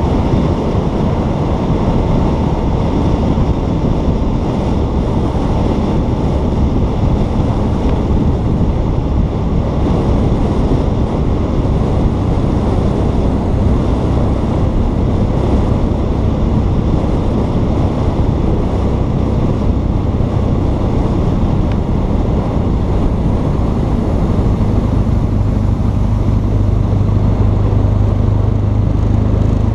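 Wind buffeting the camera's microphone while riding a BMW R1200 GS Adventure, its boxer-twin engine running steadily underneath. The engine note grows stronger near the end.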